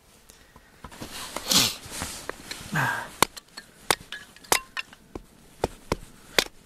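Hatchet tapping down on a thin stick of firewood stood on a wooden block, splitting kindling: about eight sharp wooden knocks in the second half. Before them come two louder whooshing sounds with a falling pitch.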